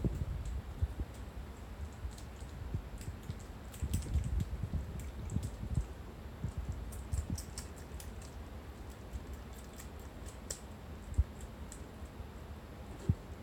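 Kittens scrambling on a denim-covered lap: scattered small clicks and scratches as their claws catch in the fabric, over soft rustling, with two sharp low thumps near the end.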